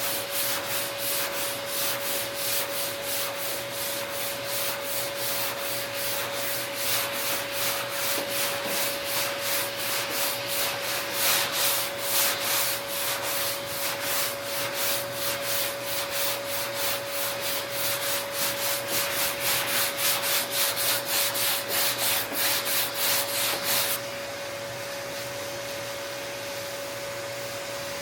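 Hand block sanding of body filler on a car's front fender: rhythmic rasping strokes, about three a second, that stop about 24 seconds in. A steady shop hum with a single held tone runs underneath.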